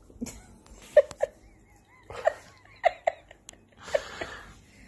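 Short, soft vocal sounds from a person, about half a dozen separate brief noises spread over a few seconds, with a breathy rustle about four seconds in.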